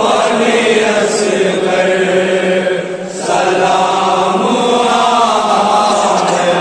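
A group of men reciting a noha, a Shia lament, in unison: a lead voice with the chorus singing long held notes, with a brief pause for breath about three seconds in.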